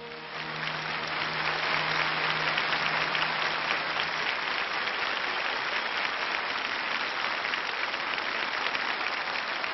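Studio audience applauding; the clapping swells about half a second in and holds steady. The last held note of the song fades out underneath it in the first few seconds.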